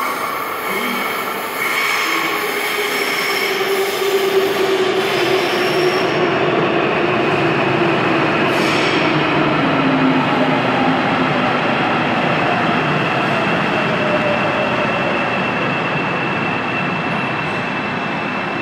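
Busan Metro Line 3 electric train pulling into the station, its wheels running on the rails with a continuous rumble. A whine from the traction motors falls steadily in pitch as the train slows, and a thin high steady tone joins about six seconds in.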